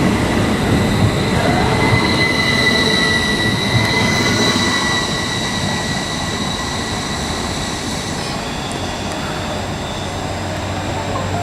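Class 333 electric multiple unit moving along the platform: a rumble of wheels on rail with a steady high-pitched wheel squeal that fades out about eight seconds in.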